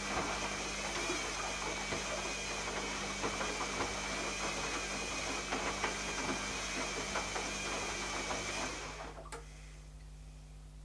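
Zanussi ZKN7120L washing machine running part of its cycle: a steady whirr with a wavering high whine, hiss and light rattling, which cuts off about nine seconds in and is followed by a single click.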